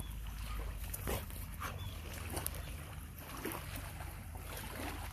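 Wind rumbling on the microphone, with a few short, irregular sounds from a German Shepherd sniffing at a ball in the grass.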